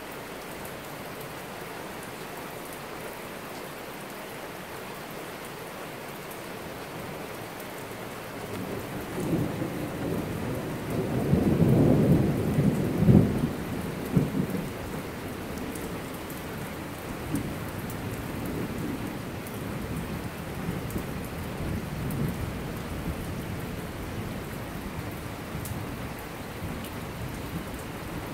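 Steady rain falling on a paved street, with a long roll of thunder that builds about a third of the way in. The thunder is loudest for a few seconds in the middle, with a sharp crack at its peak, then rumbles on more weakly for several seconds.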